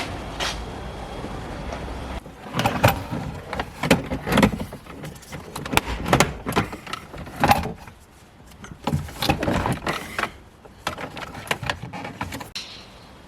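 Irregular knocks, clicks and scrapes of hand work on a car's dashboard, parts being handled and pried loose, with quieter gaps about eight seconds in and near the end.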